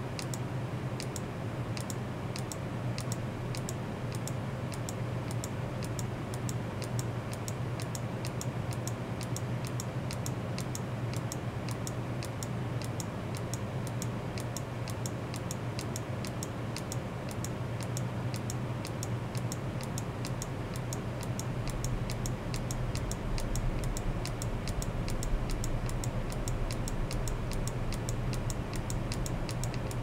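Rapid, regular ticking, several sharp ticks a second, over a steady low hum; a deeper rumble joins about two-thirds of the way through.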